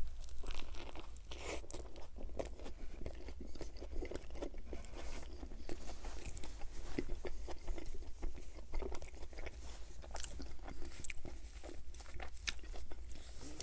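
A person biting into a Burger King Whopper Jr. and chewing it, with many small, irregular clicks of chewing throughout.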